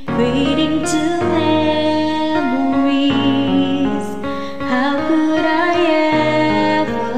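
A woman singing a slow love ballad over a karaoke backing track, holding long notes with a wavering vibrato over sustained chords.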